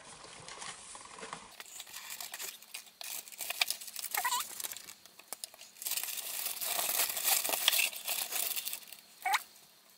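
Paper packaging of a Glossybox beauty box crinkling and rustling as hands rummage through it for the products, with small clicks and a tearing sound, in two stretches a second or so apart.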